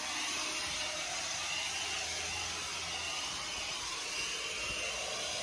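Handheld cordless blower running steadily, a constant rush of air.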